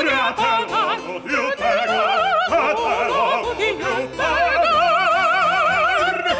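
A soprano and a male singer singing an opera duet with wide vibrato, the line moving quickly and then settling on one long held note for the last two seconds or so.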